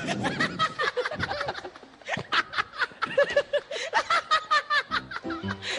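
People laughing: a long run of quick, chopped chuckling pulses, several a second.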